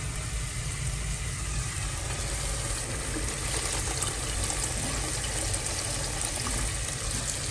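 Chili paste sizzling in oil in a pot while tamarind water is poured into it: a steady wet sizzle.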